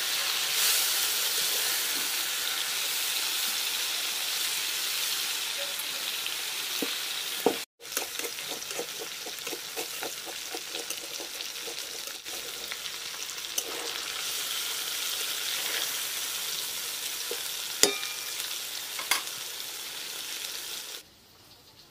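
Lote fish (Bombay duck) frying in oil in a metal wok with a steady sizzle, the fish's own water already cooked off, while a metal spatula stirs and turns the pieces with light scraping ticks. The sizzle breaks off briefly about a third of the way in and drops away near the end.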